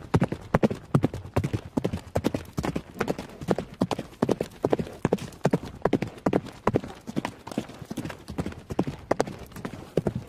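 Horse hooves clip-clopping at a steady walk, about four hoof beats a second: a hoof sound effect, not real hooves, since the only horse in the picture is a toy hobby horse on carpeted stairs.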